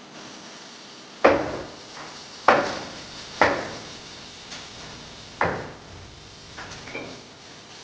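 Four hammer blows at uneven intervals, each a sharp knock that dies away quickly, followed by a few lighter taps near the end.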